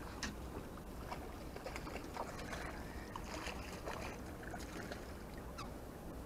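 A small red drum splashing at the surface as it is reeled up to the boat and lifted out, with scattered small splashes and clicks over a steady low rumble of wind and lake water.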